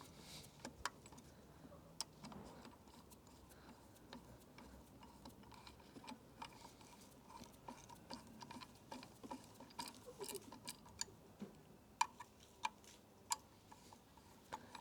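Faint, irregular small clicks of a hand tool turning bolts on a bicycle handlebar mount. The clicks are sparse at first and come more often in the second half, about one a second near the end.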